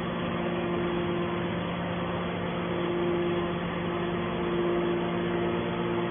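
Steady machine hum: a low drone with a higher tone that fades in and out every second or two, over a constant noise.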